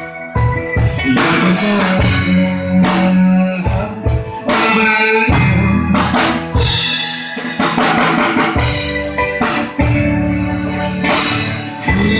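Live band playing an instrumental passage: a drum kit with kick, snare and rimshot hits drives the beat under chords and lines on an electronic keyboard.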